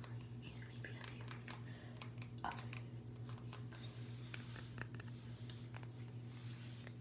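Long fingernails tapping and scratching on a small glass perfume bottle and its metal cap: faint, irregular light clicks, over a steady low hum.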